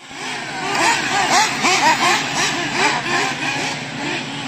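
Several radio-controlled race cars running on the track together, their motors whining in quick overlapping rising-and-falling sweeps of pitch, two or three a second.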